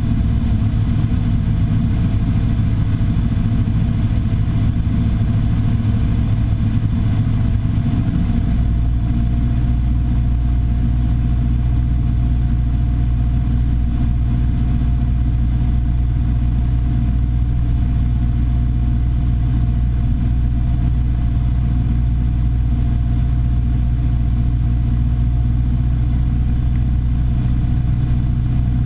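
Piper Warrior III's four-cylinder Lycoming engine and propeller droning steadily; the engine note changes about eight seconds in, as with a power setting change, then holds steady.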